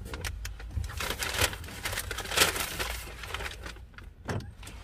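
Rustling and irregular small clicks and taps of fast-food packaging being handled.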